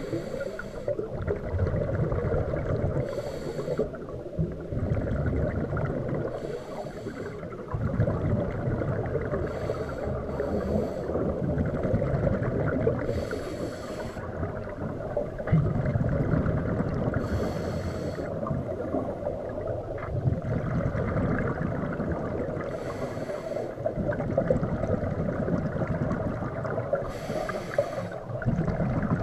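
Scuba regulator breathing underwater: a short hissing inhale every three to five seconds, each followed by a long, low, bubbling rumble of exhaled air leaving the exhaust valve.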